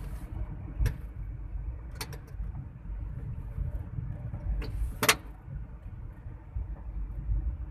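Steady low road and engine rumble of a car, heard from inside the cabin while driving. A few short sharp knocks break through, the loudest about five seconds in.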